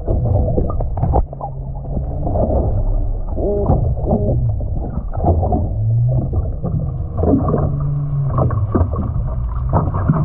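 Muffled underwater sound picked up by a submerged camera: a low hum that steps up and down in pitch, with curved higher tones and scattered clicks and knocks.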